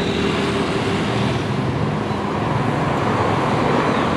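Steady road traffic noise from passing vehicles, with a low engine hum under it.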